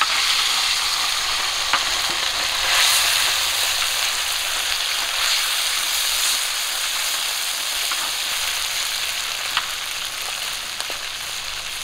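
A batch of small tangra fish tipped into hot oil in a metal wok, sizzling loudly at once and then frying steadily, the sizzle slowly easing. A few light clicks of a metal spatula stirring the fish.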